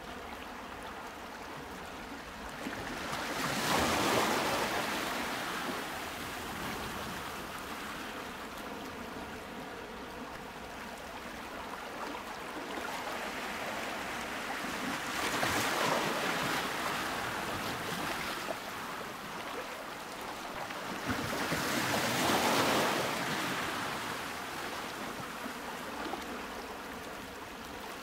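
Ocean waves washing in and drawing back: a steady rushing hiss that swells up three times, slowly building and fading each time.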